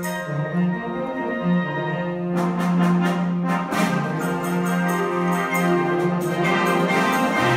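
Concert band playing: sustained brass and woodwind chords over a steady low bass note, with repeated percussion strikes joining about two seconds in.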